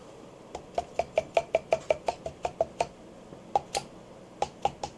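Wooden mallet tapping on the aluminium cylinder block of a 1974 Honda CB350F four-cylinder engine, easing the block down over the pistons and rings: a quick run of about a dozen light taps with a short ring, then a few more after a brief pause.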